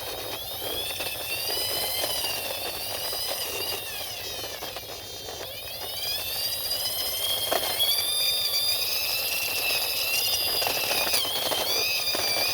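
A toy police helicopter pushed along by hand: a high whine from the toy rises, holds and falls in long sweeps as it is pushed, over the rustle of its wheels rolling.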